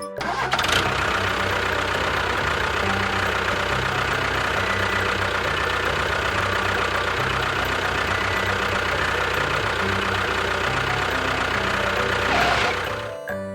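A small engine running steadily for about twelve seconds. It starts about half a second in and cuts off shortly before the end.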